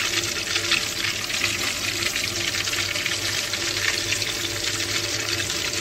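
Minced-mutton seekh kababs shallow-frying in hot oil in a pan: a steady sizzle with fine crackling.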